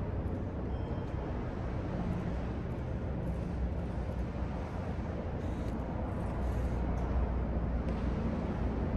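Steady low rumbling background noise of a large hall, with no distinct events.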